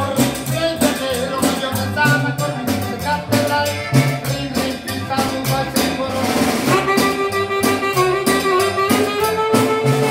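A chirrín band playing live norteño-style music: saxophone and button accordion carry the melody over an upright bass (tololoche) and a snare drum keeping a steady beat. About seven seconds in, a long note is held over the band.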